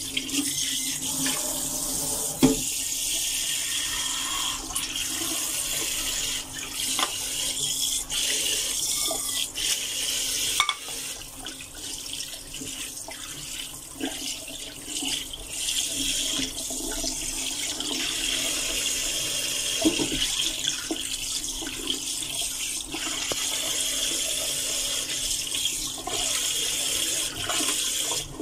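Kitchen tap running steadily into a stainless steel sink as raw chicken pieces are rinsed by hand, with splashing and a few sharp knocks, the loudest about two and a half seconds in.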